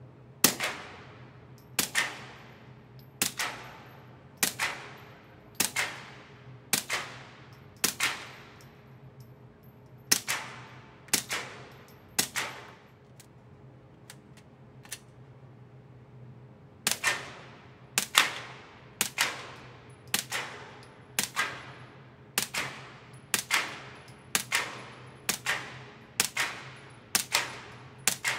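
Suppressed Gen5 Glock 19 9 mm pistol with a CGS Group Kraken 9 silencer, firing 147-grain subsonic rounds in steady slow fire at about one shot a second, each a sharp muffled pop with a brief ring. About ten shots are followed by a pause of about four seconds with a couple of faint clicks, then about a dozen more shots.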